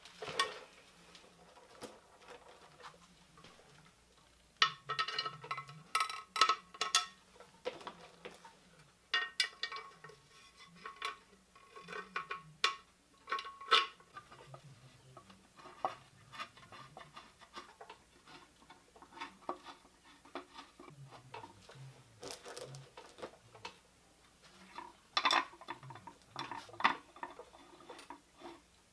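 Handling sounds of a 5.3 L LS engine's timing chain cover and its new gasket: scattered clicks, taps and light clatter in several short clusters as the gasket is worked into the cover and the cover is fitted to the block.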